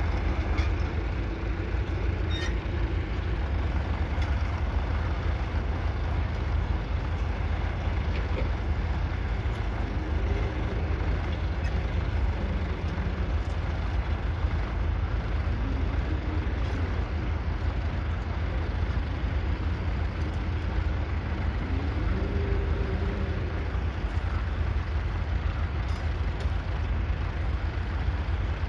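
1938 Fordson Model N tractor's 3.6-litre four-cylinder diesel engine running steadily under a deep, constant low rumble.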